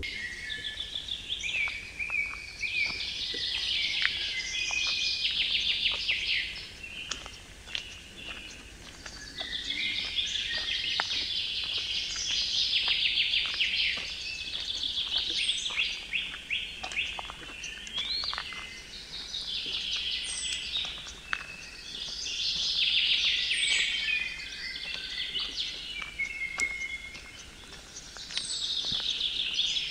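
A songbird singing loud, rapidly trilled song phrases a few seconds long, repeated with short pauses between, over faint crunching footsteps on a gravel trail.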